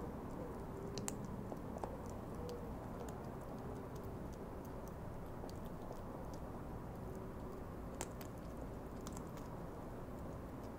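European hedgehog chewing dry food close to the microphone: irregular sharp crunching clicks, some in quick clusters, over a steady low background noise.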